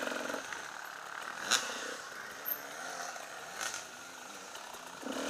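Enduro motorcycle engine ridden slowly at low revs over a rough dirt track. It is briefly louder at the start, then runs quieter with its pitch rising and falling on the throttle, with two sharp knocks about a second and a half in and near four seconds.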